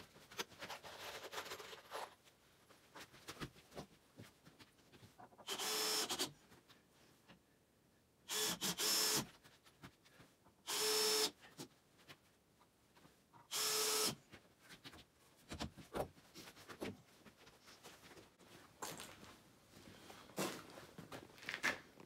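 A cordless drill-driver run in four short bursts, each with a steady motor whine, between quieter clicks and handling noise.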